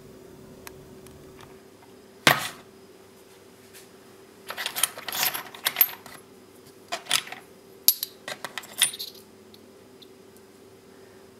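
A single sharp knock, then hard ferrite transformer cores and plastic coil bobbins clinking and clattering in short flurries as a hand rummages through them in a plastic box.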